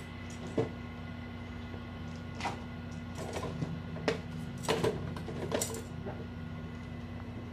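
Kittens batting a plastic spoon and a small box across a tile floor: irregular light taps, clatters and scrapes, a few of them in quick clusters, over a steady low hum.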